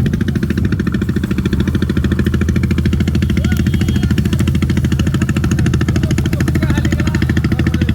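Engine running steadily at a constant speed, with a rapid, even beat.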